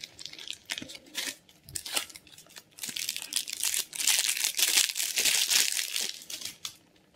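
Clear plastic packaging sleeve crinkling as a small device is pulled out of it and its cardboard box is handled. Scattered light taps and rustles at first, then steady dense crinkling from about three seconds in, stopping shortly before the end.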